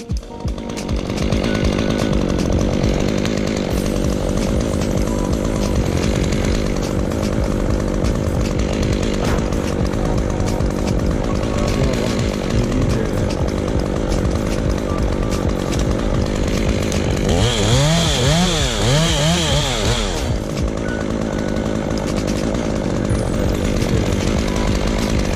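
Stihl MS201T C-M top-handle two-stroke chainsaw cutting through a dead ash stem at full throttle, running steadily under load. About seventeen to twenty seconds in, its pitch rises and falls several times as the throttle is worked.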